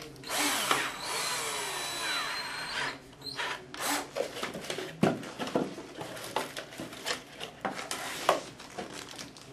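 Cordless drill running for about two and a half seconds, driving a screw through a dome camera's mounting base into a ceiling tile, its pitch dropping under load. After it come scattered knocks and rustles of handling.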